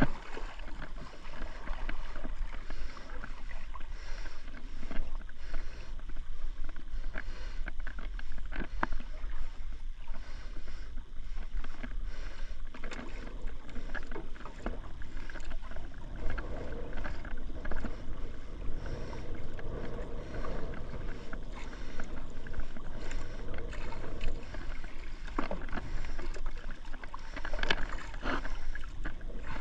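Water lapping and slapping against the hull of a small wooden outrigger fishing boat, steady throughout, with scattered light knocks and clicks on the boat.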